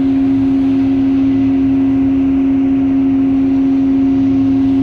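Loud, steady machinery hum from the container ship's own onboard machinery: one strong constant tone with fainter tones above it over a low rumble, unchanging throughout.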